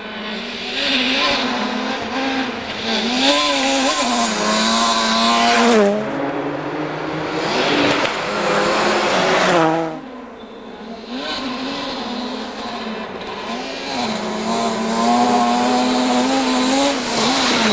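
Rally cars at full throttle on a gravel stage, one after another, their engines revving up and dropping back with each gear change and lift, over the hiss of tyres on loose gravel. The sound cuts abruptly from one car to the next about 6 and 10 seconds in.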